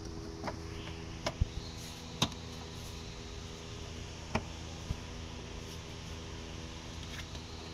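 Plastic engine cover of a VW Golf Mk5 1.6 engine being pressed down into place by hand, giving a handful of short sharp plastic knocks and clicks, the loudest about a second and a half and two seconds in, over a steady low hum.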